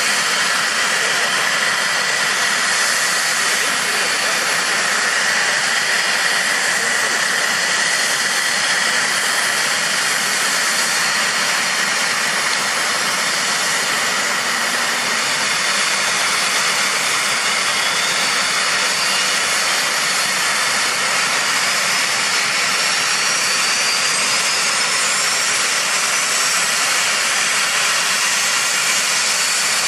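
Steady high turbine whine and hiss from the UH-60JA Black Hawk helicopter on the ground, its rotor not yet turning. Over roughly the last third a faint whine climbs steadily in pitch.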